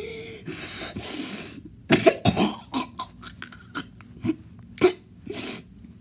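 A person coughing and clearing their throat in a quick run of short, sharp bursts, with breathy exhales near the start and end, while trying to force out a burp.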